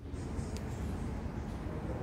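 Steady low rumble of ambient noise in an underground subway station, with no train at the platform, and a faint click about half a second in.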